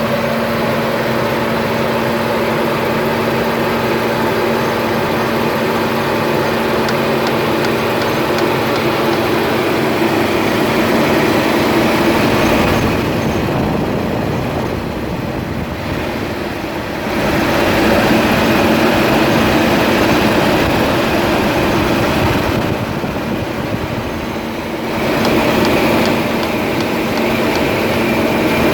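BMW E36's M43 inline-four engine running, with a knock that recurs about every six seconds. The engine note changes twice, turning duller for a few seconds each time.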